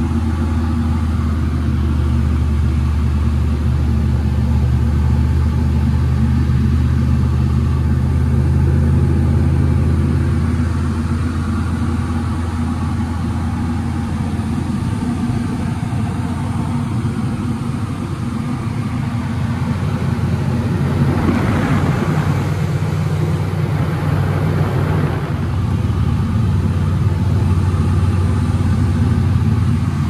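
Light aircraft's piston engine and propeller droning steadily in cruise flight, heard from inside the cockpit. Its tone shifts slightly partway through, with a brief rush of noise about two-thirds of the way in.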